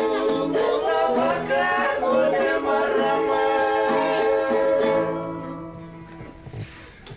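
Strummed guitar music with voices singing, fading out from about five seconds in.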